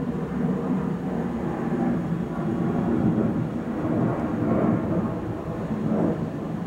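Distant thunder rumbling and rolling, swelling up and dying back several times.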